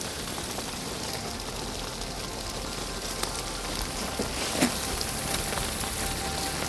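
Sleet pattering steadily on frozen leaves and gear, with a few sharp clicks and rustles from a folding camp chair's pole frame and fabric seat being fitted together; the loudest click comes about four and a half seconds in.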